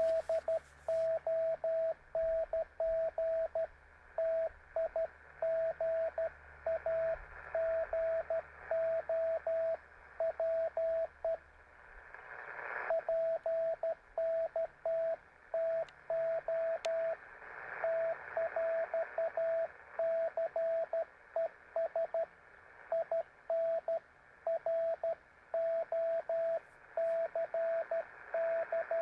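Morse code (CW) from an amateur radio transceiver: a single-pitch tone keyed in dots and dashes, sending steadily over a hiss of band noise. About twelve seconds in, the keying pauses briefly and the hiss swells before sending resumes.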